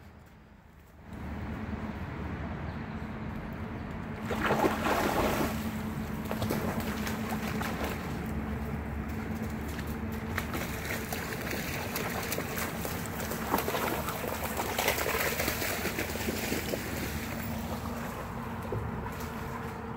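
Shallow creek water running, with dogs splashing through it; the splashing gets louder about four seconds in and again around fifteen seconds.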